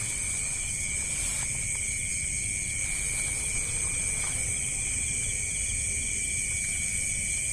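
Steady chorus of insects chirring in two constant high-pitched tones, unbroken throughout, over a faint low outdoor rumble.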